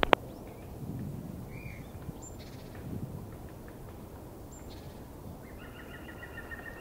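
Outdoor ambience with a low rumble of wind on the microphone and a few short bird calls, then from about five and a half seconds a bird's rapid trilled call that carries on. A sharp click at the very start.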